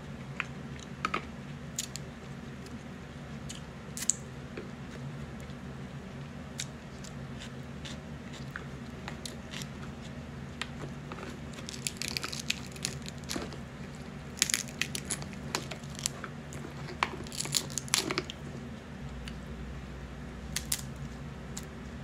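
Cooked crab legs being broken open by hand, the shells cracking and crunching in scattered sharp clicks that come thickest in the middle of the stretch, over a steady low hum.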